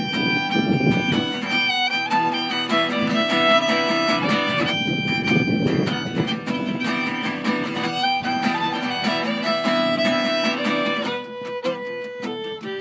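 Fiddle playing a melody over a strummed acoustic guitar: an instrumental break between the sung verses of a folk song, getting quieter near the end.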